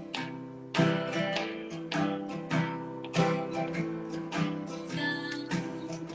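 Guitar strumming chords in a song's instrumental intro, with strong strokes about twice a second.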